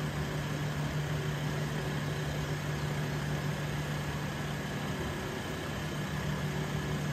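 A steady low mechanical hum, unchanging throughout, over an even rushing noise of fast-flowing river water.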